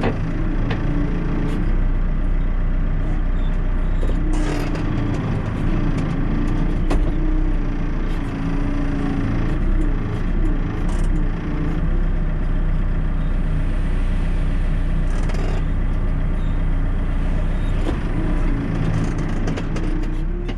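Backhoe loader's diesel engine running steadily under working load, its pitch wavering slightly, with occasional knocks and scrapes from the bucket working rock.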